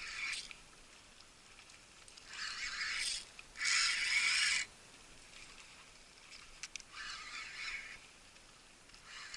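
Water splashing in five separate rushes, each lasting about a second, against a quiet background.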